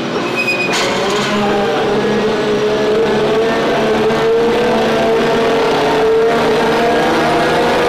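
Engine of an aircraft cargo loader pulling away and driving past, its pitch rising steadily over the first few seconds and then holding steady.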